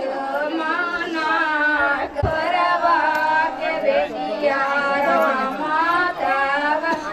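A group of women singing together, several voices overlapping in long, wavering held notes.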